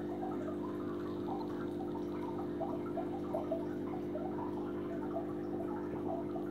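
Aquarium pump humming steadily, with water bubbling and trickling in small irregular blips.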